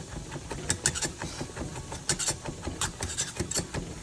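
Wire potato masher mashing cooked black beans in a stainless steel saucepan, its metal repeatedly clicking and scraping against the pan.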